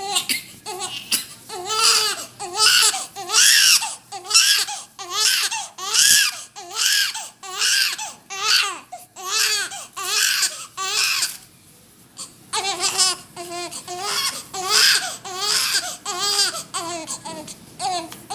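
Newborn baby crying while being bathed: a long run of short wailing cries, about two a second, each rising and falling in pitch, broken once by a pause of about a second past the middle.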